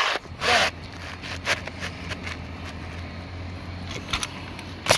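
Asphalt shingles rustling and scraping as they are lifted by hand, over a steady low motor hum, with one sharp snap near the end.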